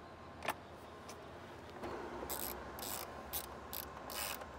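Hand ratchet clicking in short back-and-forth strokes, a few clicks a second, as a door-panel fastener is driven by hand rather than with a drill.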